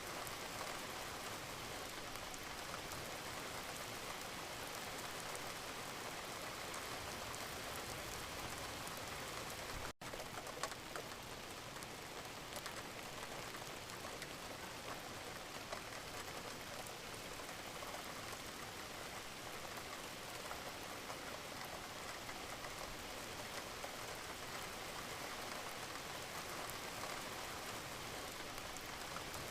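Steady rain falling, an even hiss with scattered patter of drops, broken by a momentary gap of silence about ten seconds in.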